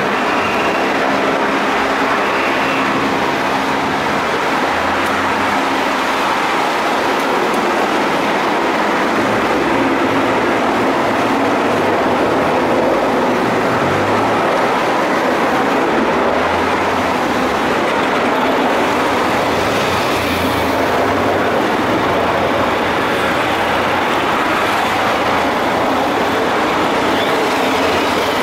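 Steady traffic noise from a line of support cars driving past on a wet road: engines and tyre hiss running on without a break.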